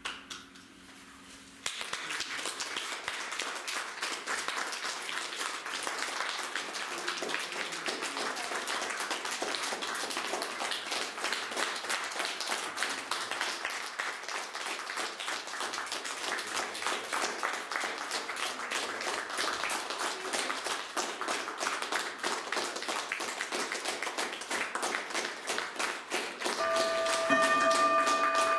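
Audience applauding, a dense steady clapping that starts a couple of seconds in. Near the end a steady ringing tone with several pitches comes in over the clapping and is the loudest sound.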